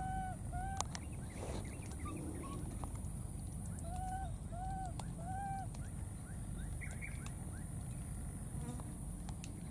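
Short, arched coo calls from baby monkeys, each rising and falling in pitch: two just after the start, then three in a row about four seconds in.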